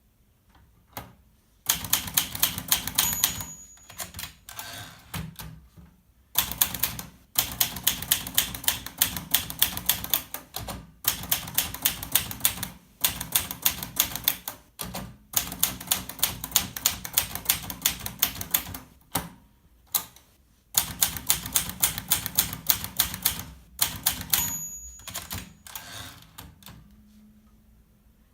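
Olivetti Valentine manual portable typewriter being typed on: quick runs of key strikes separated by short pauses. A short high ring sounds twice, about three seconds in and near the end.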